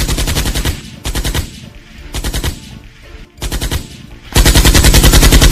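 Machine-gun fire sound effect: rapid shots at about ten a second, in bursts. One burst ends under a second in, short bursts come about a second, two seconds and three and a half seconds in, and a longer, louder burst starts a little after four seconds.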